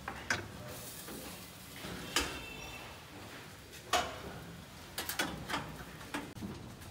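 Irregular metallic clinks and knocks from a stainless steel charcoal duck-roasting drum and the utensils being handled around it. The loudest knock comes about four seconds in, and a quick run of clinks follows near the end.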